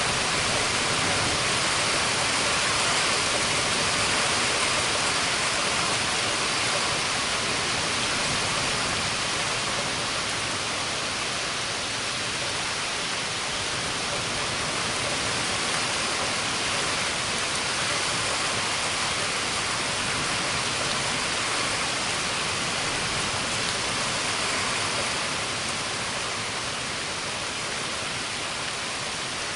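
Heavy thunderstorm rain falling steadily, a dense even hiss that eases slightly near the end.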